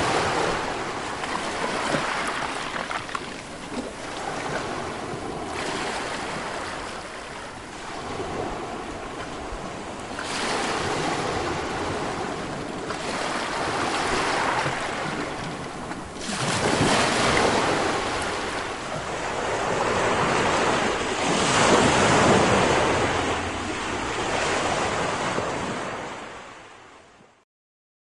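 Sea surf: waves breaking and washing in surges that swell and ease every few seconds, fading out near the end.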